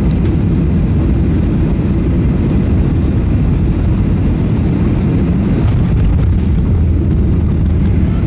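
Jet airliner's engines and airflow heard from inside the cabin: a loud, steady low rumble.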